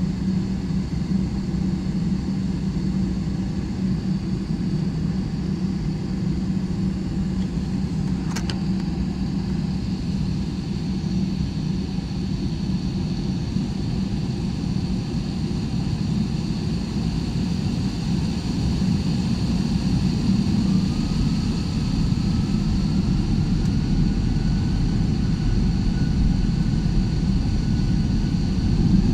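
Jet airliner cabin noise on the ground: the engines run with a steady low hum and rumble. The noise grows gradually louder in the second half, and a faint whine slowly rises in pitch as the engines spool up toward the takeoff roll.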